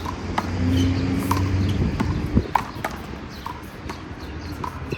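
A rubber handball smacking off players' hands, the wall and the court during a rally: a run of sharp slaps, about two a second, over a low steady hum.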